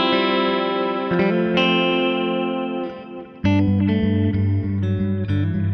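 Gretsch G5421 Jet Club electric guitar played through a Line 6 HX Stomp effects processor with light distortion. A chord rings out and is struck again about a second and a half in, fades, and about three and a half seconds in a new, fuller passage with heavier bass begins.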